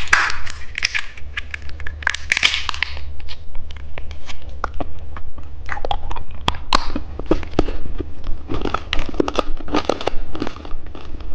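Candy eating: a plastic candy wrapper crinkling and hard candy crunching, a dense run of crackles and clicks over a low steady hum.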